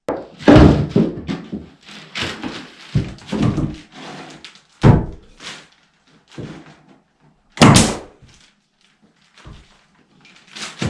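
Irregular loud wooden thumps and knocks as maple wall boards are set in place and fastened.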